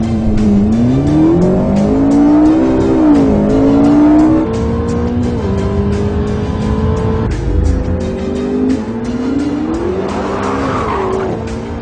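McLaren MP4-12C's 3.8-litre twin-turbo V8 accelerating hard through its gears. The engine note climbs and then drops at each quick upshift, several times over.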